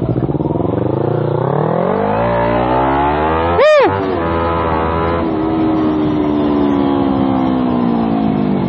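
Kawasaki Z250 parallel-twin engine pulling away, its pitch rising as it accelerates over the first three seconds, then running at a steady, slowly falling pitch as it cruises. A short, loud rising-and-falling tone cuts in about three and a half seconds in.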